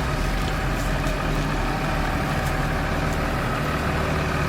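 Diesel engine of an LTX2004 four-wheel-drive farm tractor running at a steady speed, a continuous low hum.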